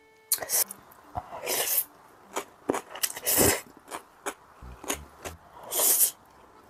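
A person slurping thick instant jjajang noodles, with three loud slurps a second and a half to two and a half seconds apart and small chewing and mouth clicks between them.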